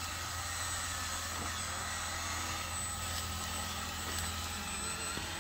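Steady whirring hum of toy RC construction vehicles' electric motors and gearboxes running, as the loaded RC dump truck and RC bulldozer drive over dirt.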